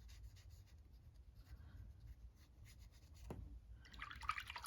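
Faint scratchy strokes of a paintbrush on watercolour paper as colours are swatched, with a single small click about three seconds in and a louder stretch of brushing near the end.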